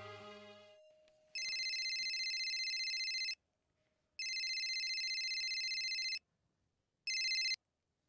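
Mobile phone ringing with a steady electronic ringtone. There are two rings of about two seconds each, then a third that is cut short as the call is answered. Background music fades out in the first second.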